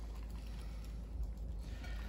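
Quiet room tone with a steady low hum and a few faint soft clicks and rustles in the second half, from hands pressing sliced fennel into the cavity of a raw whole fish.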